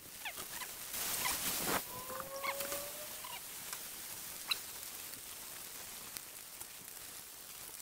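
Minced beef and pork sizzling and crackling in a hot cast-iron Dutch oven over charcoal as it is stirred with a wooden spatula, with a louder burst of sizzle about a second in. A short squeak comes a little after two seconds.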